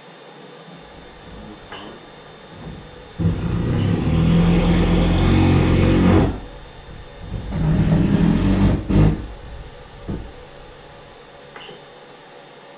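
Creality CR-10 3D printer's stepper motors driving an axis, a steady motor whine heard in two runs: about three seconds long from three seconds in, then about two seconds long a second later.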